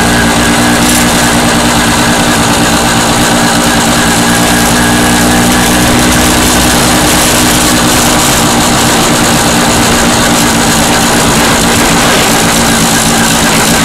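MZ motorcycle's engine running at a steady cruise while riding, with wind and road noise over it.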